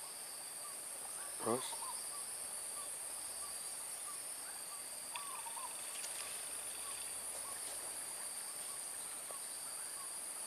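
Swamp ambience: a steady high-pitched insect drone with short repeated animal calls. About one and a half seconds in comes a brief, louder call that sweeps down in pitch with a wavering tremble.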